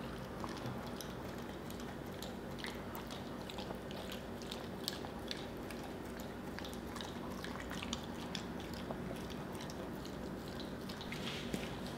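Siberian husky licking and smacking its lips on a mouthful of sticky peanut butter: scattered short wet clicks and smacks, over a steady low hum.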